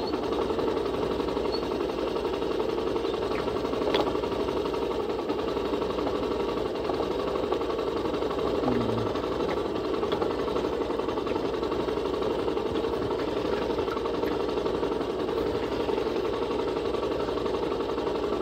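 Motorcycle engine running steadily as the bike rides along, with one sharp knock about four seconds in.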